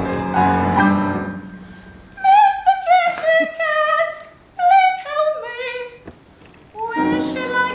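Upright piano chord ringing and fading, then a female operatic voice sings two short phrases with vibrato that drift downward, and a new piano chord comes in near the end.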